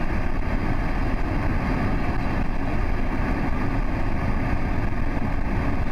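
Debris-laden flash-flood water from a glacier outburst rushing down a river valley, a steady deep rumble with no break.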